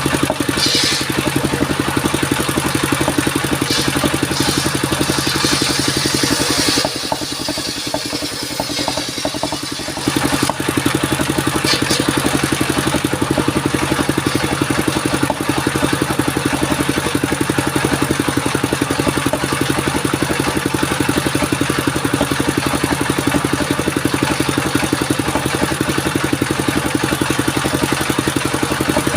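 Engine driving a wood-cutting circular saw machine, running steadily with an even pulsing beat. It eases off for a few seconds about seven seconds in, with bursts of higher hiss in the first seven seconds and once more around twelve seconds in.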